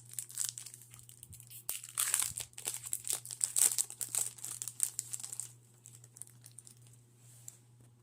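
Foil wrapper of a Pokémon Lost Origin booster pack being crinkled and torn open, with sharp crackles, loudest through the middle few seconds and fading to lighter rustling near the end. A low steady hum runs underneath.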